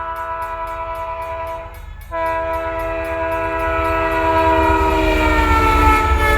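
Multi-chime train horn sounding a chord of several notes over a low rumble, in two blasts with a short break about two seconds in. The second blast slowly slides down in pitch near the end. A fast, regular high ticking runs over the first blast.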